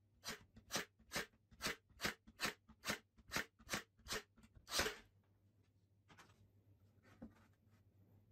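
Cordless brad nailer firing brads into a plywood strip: about ten sharp shots, roughly two a second, the last one the loudest. A few light knocks of the wood being handled follow.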